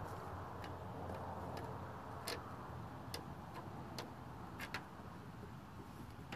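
Faint sharp clicks, irregular, about one a second, over a steady low rumble.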